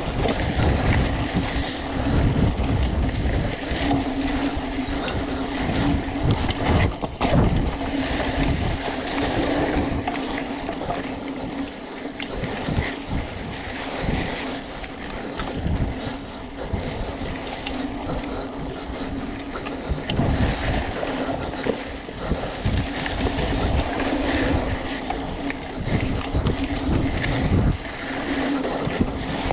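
Wind buffeting the microphone over the noise of a hardtail mountain bike ridden fast down a dirt trail: knobby tyres rolling with a steady hum, and frequent short knocks and rattles from the bike over roots and bumps.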